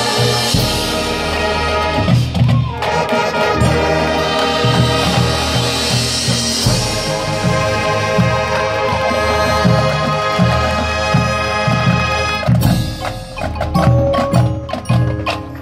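Marching band playing live: sustained brass chords over a repeating low drum pulse. In the last few seconds the sustained sound thins and the front ensemble's marimbas and mallet percussion come forward with separate struck notes.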